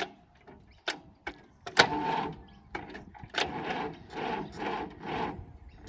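International A414 tractor's starter motor cranking the engine slowly in labouring strokes, about two a second, without it firing: the battery is flat. A few sharp clicks come first.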